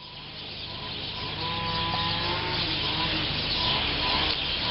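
A small engine running steadily, fading in over the first couple of seconds, with a few faint bird chirps.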